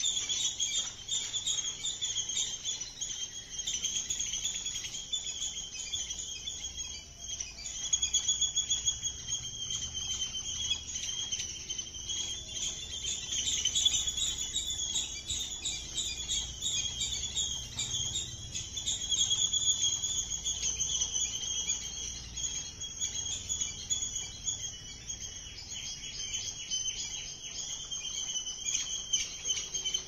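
A continuous outdoor chorus of high chirping from small birds and insects, rapidly pulsing and running without a break.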